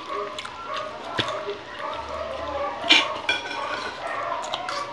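Close-up eating sounds: a man chewing a mouthful of rice and eggplant, with wet lip smacks and small mouth clicks throughout and one sharper smack about three seconds in.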